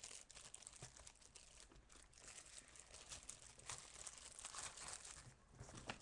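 Faint crackling and rustling of fingers squeezing and rubbing a jumbo foam bun squishy with a sticky surface, held right at the microphone.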